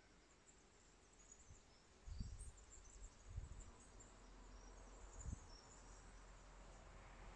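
Near silence: faint outdoor ambience with scattered high, faint chirps of distant birds or insects, and a few soft low thuds from about two seconds in.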